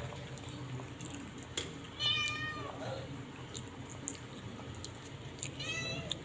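A domestic cat meowing twice, once about two seconds in and again near the end, with a few light handling knocks.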